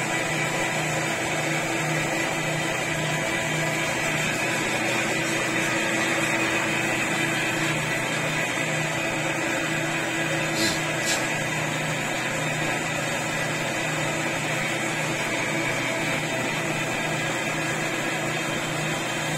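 Metal lathe running steadily, with a low hum that pulses evenly and a steady whine above it. Two brief clicks come about halfway through.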